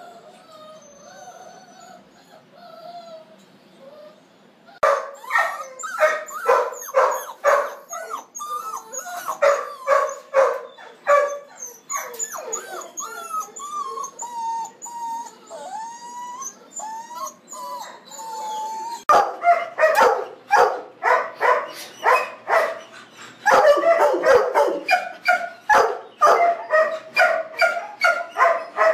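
Shelter dogs barking and whining. Faint wavering whines at first, barking starting about five seconds in, wavering whines between the barks in the middle, then louder, denser barking from about nineteen seconds on.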